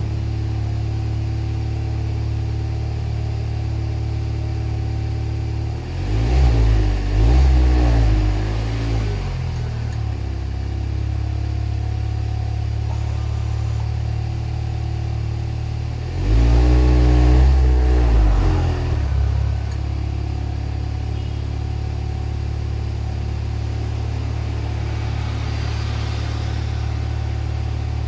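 Car engine and exhaust idling steadily, revved twice with short throttle blips, once about six seconds in and again about sixteen seconds in, settling back to idle after each.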